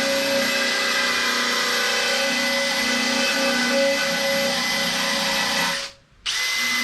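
Handheld electric power tool whirring at steady speed. It stops about six seconds in and starts up again a moment later.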